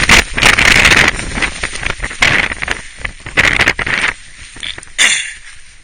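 Strong summit wind buffeting the microphone in loud, irregular gusts, strongest in the first second and easing off near the end.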